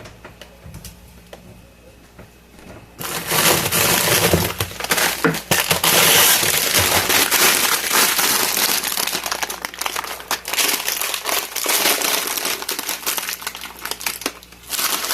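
Plastic bags and packages of frozen food crinkling and rustling as they are rummaged through in a chest freezer, starting about three seconds in and stopping shortly before the end.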